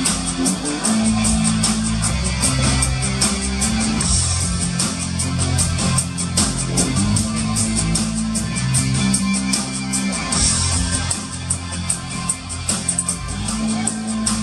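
Live band music with electric guitar strumming over a drum kit keeping a steady beat.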